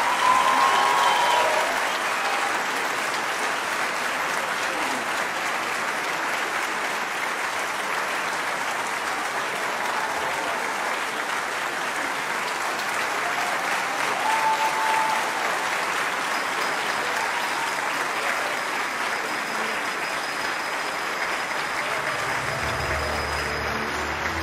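Large concert-hall audience applauding steadily, a dense, even clapping that holds at a constant level.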